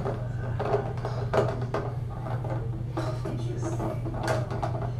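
Plastic handling at a stone bathroom counter: a mouthwash bottle and a plastic funnel picked up and set down, giving scattered clicks and light knocks over a steady low hum.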